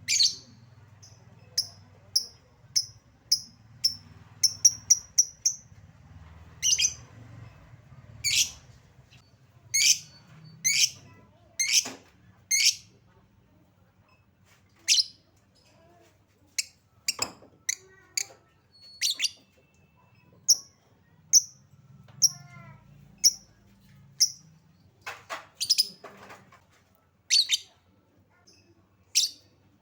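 Lovebird calling with short, shrill high-pitched chirps, singly and in quick runs, used as a lure call to set off other lovebirds.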